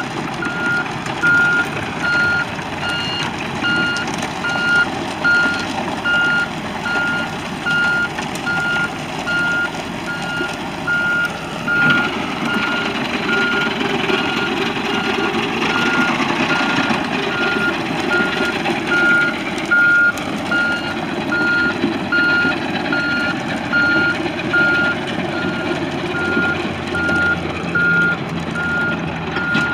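Excavator travel alarm beeping about once a second, running through the whole stretch over the four-cylinder turbo diesel engine of a Komatsu PC78MR, which grows louder from about twelve seconds in.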